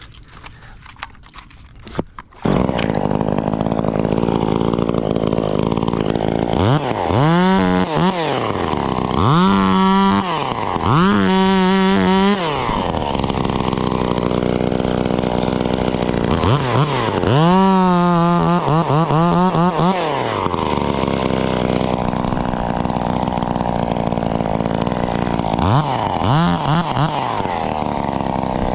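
Stihl MS 194 T top-handle two-stroke chainsaw starting up about two and a half seconds in, then running at idle and revved up and back down several times, with one longer rev in the middle.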